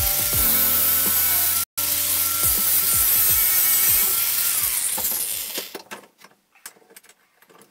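Angle grinder grinding a 1095/15N20 damascus steel billet held in a bench vise: a steady high whine with grinding hiss. The grinder spins down about five seconds in, leaving a few faint clicks of the piece being handled in the vise.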